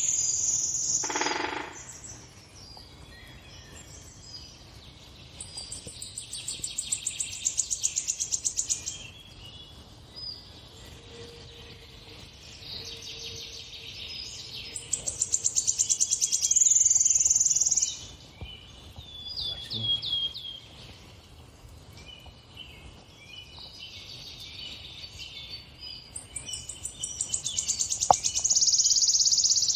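Birdsong from a bird video playing on a television: three long, rapid trills, each lasting about three to four seconds, with scattered short chirps between them.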